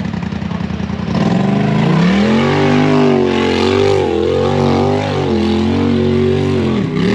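Side-by-side UTV engine revving hard under load on a rock-crawl climb. The revs rise about a second in, waver while held high, and drop off near the end.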